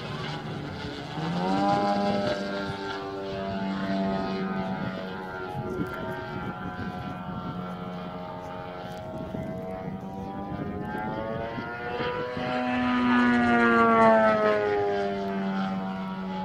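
Engine and propeller of a giant-scale radio-controlled Extra 330SC aerobatic model plane in flight. The pitch climbs sharply about a second in as the throttle opens, wavers through the manoeuvres, and swells loudest near the end before falling in pitch.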